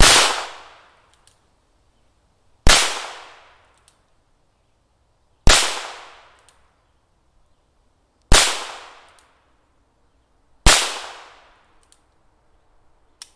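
Five loud .22 caliber handgun shots, evenly spaced about every two and a half to three seconds, each trailing off in a short echo. The slow even pace fits a single-action revolver with the hammer cocked by hand before each shot. A small click comes near the end.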